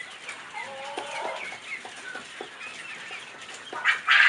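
Flock of young chickens calling: scattered soft clucks and cheeps, with a louder burst of squawking near the end.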